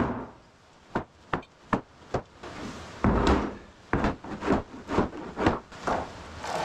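Hammer blows on wooden boards: a string of sharp knocks, settling into about two a second in the second half, with a longer, rougher knock about three seconds in.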